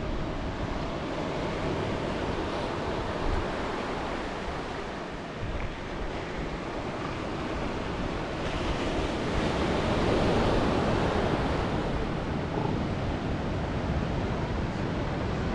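Ocean surf washing ashore with wind buffeting the microphone, the wash swelling about nine seconds in and easing off again.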